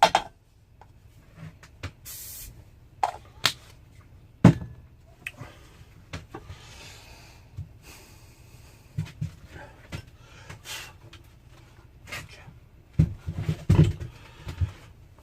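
Scattered knocks and clicks of things being handled on a workbench, with a short hiss about two seconds in and a quick run of knocks near the end.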